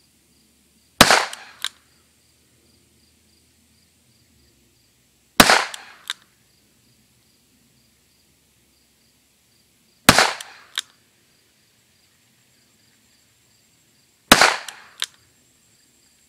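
Four shots from a long-barrelled Smith & Wesson 617 .22 LR revolver fired from a Ransom Rest, spaced about four to five seconds apart. Each sharp report rings out briefly and is followed about half a second later by a smaller, sharp click.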